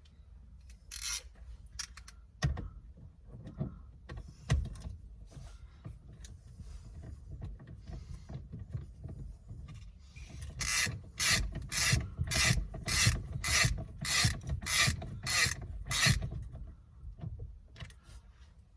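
Hand ratchet being worked back and forth, tightening the T55 Torx bolt that holds a steering wheel to the column, at about two strokes a second for several seconds. Before it come scattered knocks and scraping as the tool and parts are handled.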